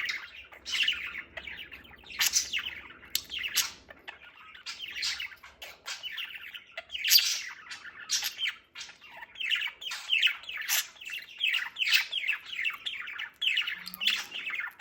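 Pet parakeets (budgerigars and lineolated parakeets) chattering continuously: a fast stream of short, downward-sliding chirps with sharper squawks mixed in.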